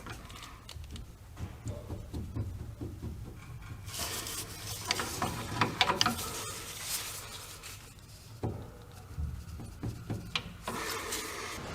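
Irregular metallic clinks, knocks and scrapes of tools and steel parts as the differential carrier of a Ford 9.75-inch rear axle is worked loose from the axle housing. The clatter comes in clusters, busiest in the middle and again near the end.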